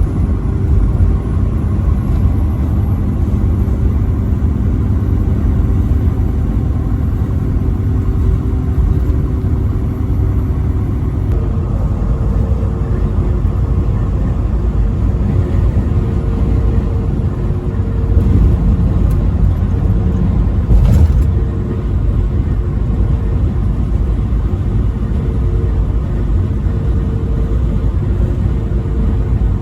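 Steady engine and road rumble of a truck driving at highway speed, with the engine's tone shifting about a third of the way in. It gets louder for a few seconds about two-thirds of the way in and ends that stretch with a short knock.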